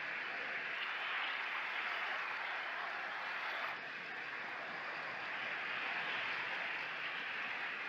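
Small sea waves washing up a shingle beach: a steady hiss of surf that eases briefly about four seconds in, then builds again.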